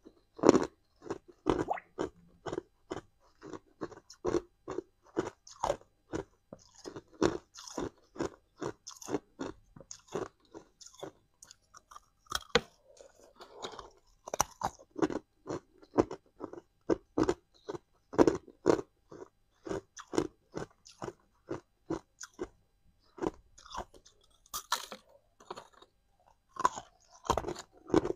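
Chunks of hard ice being bitten and chewed, close to a clip-on microphone: a steady run of sharp, brittle crunches, often two or three a second, easing off briefly now and then.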